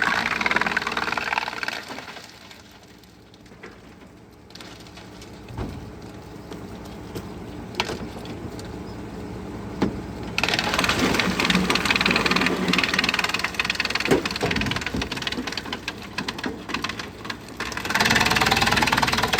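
Wood chipper at work: a dense noise of chipping, with cracks and knocks from the wood. It drops much quieter after about two seconds, with scattered knocks, then turns loud again about halfway through and once more near the end.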